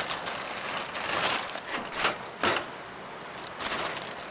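Woven plastic sacks rustling in several short, sharp spells as raw pork is handled into them, over the steady rush of a rocky mountain stream.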